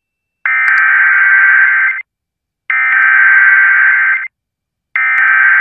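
Emergency Alert System SAME header: three identical bursts of rapid two-tone digital data, each about a second and a half long, separated by short silences. The third burst starts near the end. The header is the coded data that opens a broadcast alert, here a severe thunderstorm warning.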